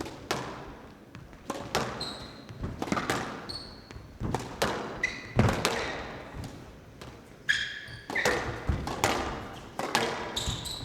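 A squash rally: the ball cracking off rackets and thudding off the court walls in an irregular string of sharp hits, with short high squeaks of shoes on the wooden court floor between them.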